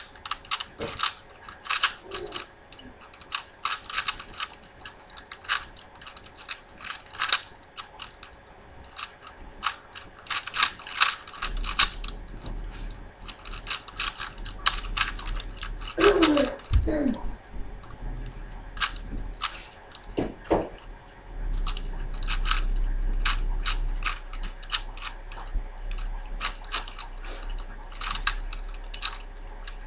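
Plastic layers of a 4x4x4 Rubik's cube being turned, a rapid, irregular run of clicks and clacks. A low hum comes in partway through.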